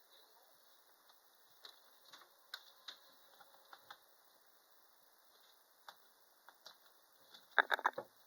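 Light scattered clicks and taps from handling a sewing machine's power cord and plug, then a quick run of louder clacks near the end.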